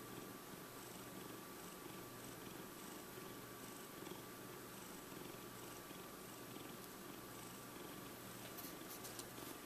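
Long-haired cat purring steadily in a regular, rhythmic pulse, close to the microphone.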